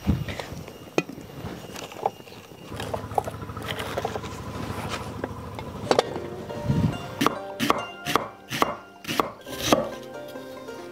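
Background music, with scattered clinks and knocks in the first half. In the second half comes a quick run of sharp chops: a cleaver slicing onion on a wooden chopping block.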